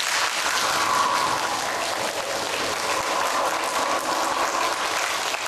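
Applause: many people clapping together, a dense, steady clatter of claps.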